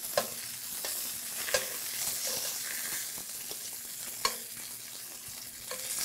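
Seafood and sausage sizzling in a hot stainless steel pan, with a few sharp metallic clinks of tongs against the pan as seared lobster tails and shrimp are lifted out.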